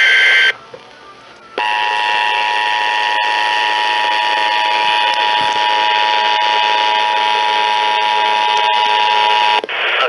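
The last burst of an EAS SAME digital data header ends about half a second in. About a second later the two-tone EAS attention signal sounds steadily for about eight seconds, heralding a Severe Thunderstorm Warning broadcast over FM radio, and it cuts off just before the spoken message starts.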